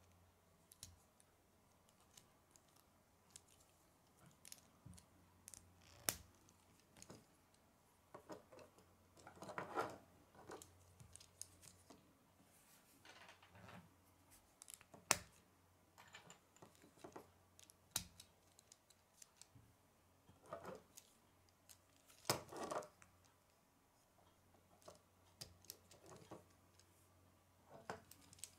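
Faint plastic clicks and short rattles of K'nex rods, connectors and gears being handled and snapped together, scattered irregularly. The loudest clicks come about halfway through and again a few seconds later.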